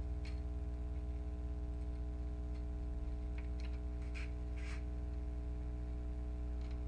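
A steady low hum with a few faint, light clicks and taps in the middle, as small printer parts are handled during disassembly.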